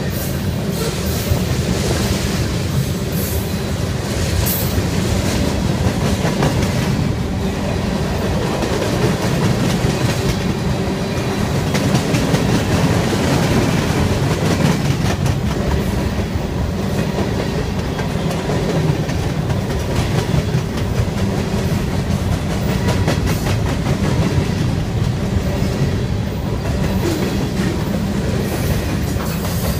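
Freight train cars rolling past at close range: a steady rumble of steel wheels on rail, with a rapid clickety-clack of wheels passing over the rail joints.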